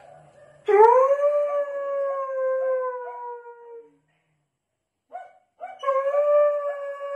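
German Shepherd-type dog poisoned by a toad, howling: one long call that swoops up and then holds, sagging slightly, for about three seconds, and after a short pause a second long howl begins near the end.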